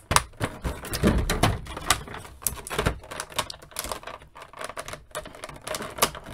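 Clear plastic blister tray crinkling and clicking as an action figure is worked loose from it and its twist ties are untwisted: many irregular sharp clicks, heavier in the first couple of seconds.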